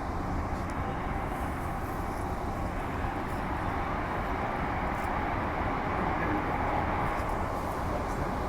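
Interior noise of a Walkers Limited A-series electric multiple unit running at speed: a steady rumble of wheels and running gear with a hum in the middle range.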